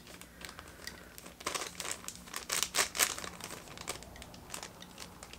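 Crinkly mystery-key blind-bag wrapping being handled and pulled open, giving irregular crinkles and small tearing sounds. The packet is hard to open.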